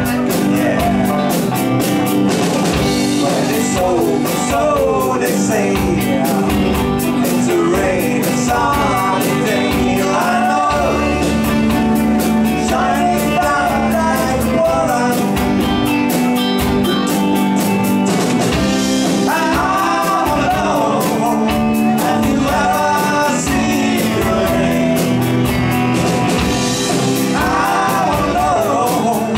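Live rock band playing a song: a lead singer over a steady drum-kit beat, electric guitar, bass and keyboards.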